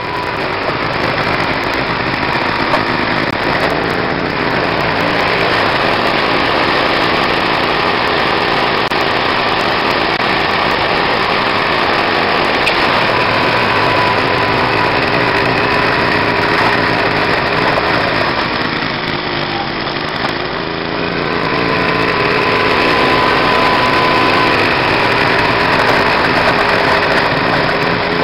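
Gas snow blower's small engine running steadily while its auger throws snow, with a brief dip in its note about two-thirds of the way through.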